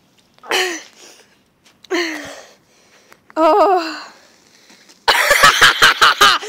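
A person coughing or gasping three short times, the third one voiced. About five seconds in, a loud, rapid run of knocks and rubbing sets in, like a phone being handled against the microphone.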